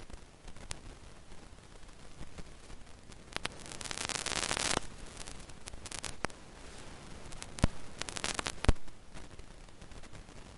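Film soundtrack of rustling and scattered sharp clicks, with a short burst of hiss about four seconds in and two louder, sharper clicks near the end.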